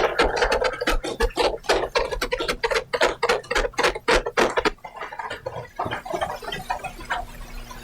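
Scattered applause in the chamber: separate claps, several a second, thinning out about five seconds in and dying away near the end.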